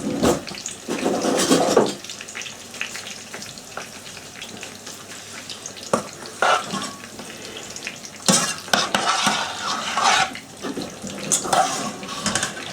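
A spoon stirring korma sauce in a pan, scraping against the pan in irregular strokes over a steady sizzle from the heated pan.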